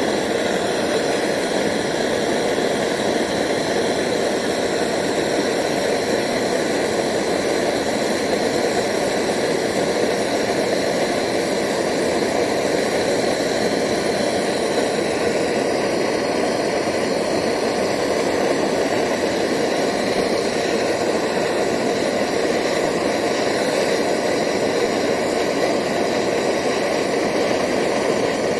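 Handheld gas blowtorch burning with a steady hiss, its flame playing on a small crucible of silver powder and borax flux to melt it.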